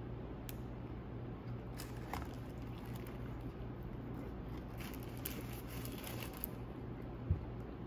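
A burger being bitten and chewed, with its paper wrapper crinkling in bursts of faint crackles over a steady low room hum. There is a single soft thump near the end.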